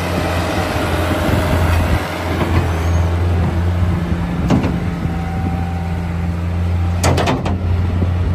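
Bobcat skid-steer loader's engine running at a steady speed as the machine drives, with a single sharp knock about four and a half seconds in and a quick cluster of sharp knocks around seven seconds in.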